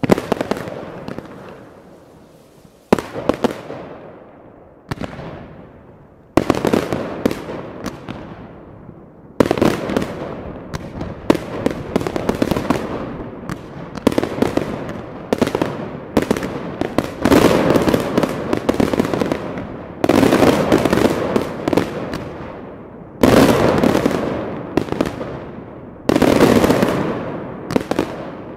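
Fireworks display: a loud bang every two to three seconds, each followed by crackling that fades away. The crackling grows denser after about ten seconds.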